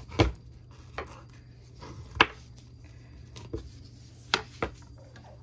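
Kitchen knife cutting salmon steaks into pieces, the blade knocking down onto a bamboo cutting board about six times at irregular intervals; the sharpest knocks come right at the start and about two seconds in.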